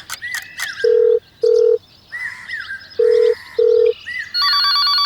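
Telephone ringing: two pairs of short, steady beeps in a ring-ring cadence, then a louder, fluttering bell-like ring starting near the end. Short falling chirps come between the rings.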